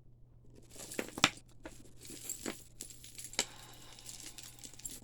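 Costume jewelry clicking and rattling as pieces are handled and sorted, with a few sharper clinks and some crinkling.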